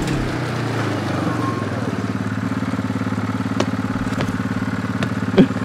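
Utility ATV (quad bike) engine running steadily at an even, unchanging speed, without revving, with a few light clicks over it.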